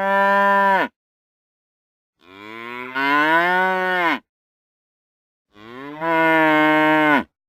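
Cattle mooing: three long moos separated by dead silence, the first already under way and ending within the first second, the next two each lasting about one and a half to two seconds and bending slightly in pitch before dropping away at the end.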